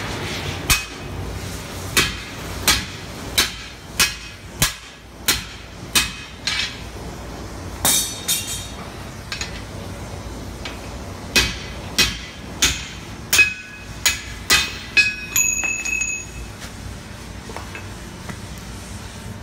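Hammer blows on a hand punch driving a hole through a red-hot 20 mm round steel bar on an anvil: about twenty sharp metallic strikes, roughly one to two a second, in two runs with a pause about halfway. The last several strikes ring with a high metallic tone.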